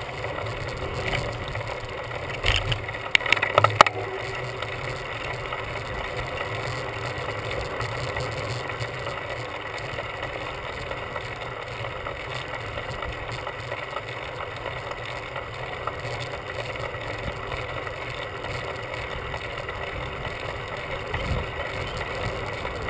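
Steady rush of wind and tyre noise from a bicycle rolling along a paved trail, heard from the handlebars. There is a brief rattle of knocks about three seconds in.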